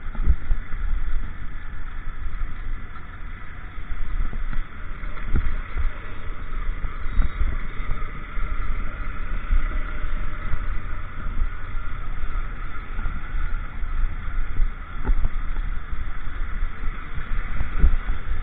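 Honda motorcycle riding slowly over a rough, potholed road: the engine runs steadily under wind rumble on the camera microphone, with scattered knocks as the bike jolts over bumps.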